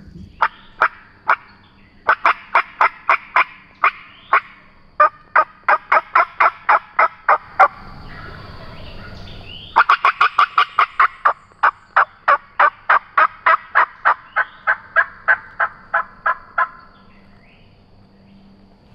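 Hen turkey cutting and yelping on a turkey call: two long runs of sharp, quick notes, about three to four a second, with a short stretch of soft rustle between them. It is aggressive calling meant to fire up a gobbler.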